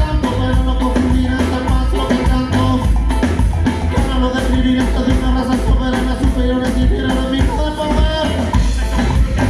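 A live band playing an upbeat ska-style tune, with a steady drum beat and bass under melodic instrument lines.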